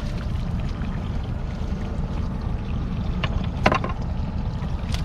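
Steady low rumble of a boat at sea, with one sharp knock a little past halfway through and a couple of faint clicks.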